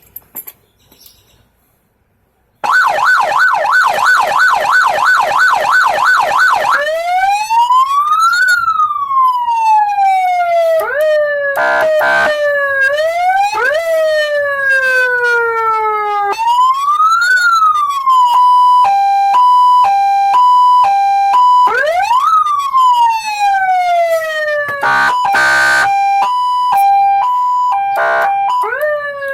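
Loud aftermarket electronic siren with twin speakers under a Ford F-150, cycling through its tones. It starts a couple of seconds in with a fast warble of about three to four pitch swings a second. Then come slow rising-and-falling wails, a two-tone hi-lo alternation, and more wails broken by short choppy bursts near the end.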